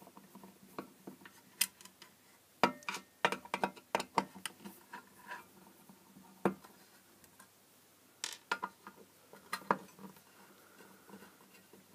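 A screwdriver undoing the small screws that hold an LED floodlight's aluminium reflector: irregular clicks and light metallic ticks as the screws turn and are handled.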